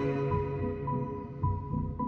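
Ambient background music: sustained, low notes fading down, with a few soft low pulses.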